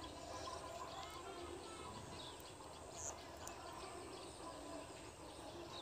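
Faint ambience of scattered bird chirps over a steady low hum.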